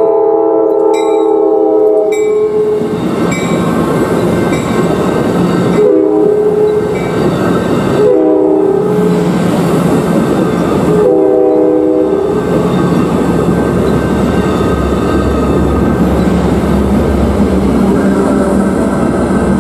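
Amtrak Pacific Surfliner passenger train passing close by: a long blast of its multi-tone air horn, then three shorter blasts a few seconds apart, over the continuous rumble and clatter of the cars rolling past.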